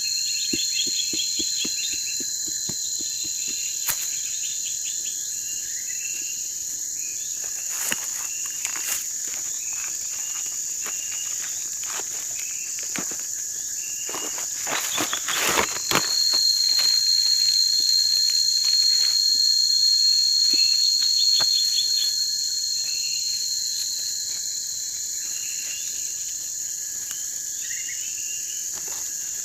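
Night insect chorus: steady high-pitched cricket trills with many short repeated chirps beneath them. A brief burst of clattering noise about fifteen seconds in.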